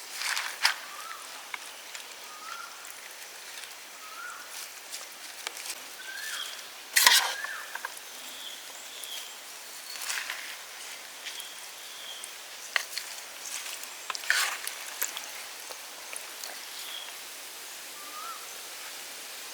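A bird calling with a short rising chirp about every second and a half over a steady outdoor hiss, with a few sharp clicks and knocks, the loudest about seven seconds in.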